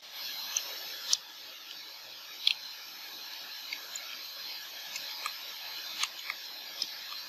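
Computer keyboard keys pressed one at a time: about ten separate sharp clicks at uneven intervals, over a steady hiss of microphone noise.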